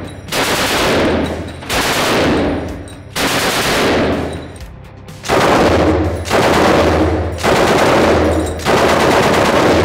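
Knight's Armament AMG belt-fed machine gun firing full-auto bursts of True Velocity 6.8 TVCM composite-cased ammunition: about seven bursts of roughly a second each, with short pauses between them.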